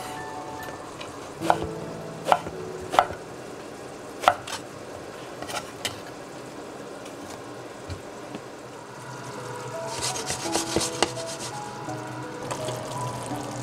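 Global kitchen knife cutting through eggplant and striking a wooden cutting board: several sharp knocks, roughly a second apart.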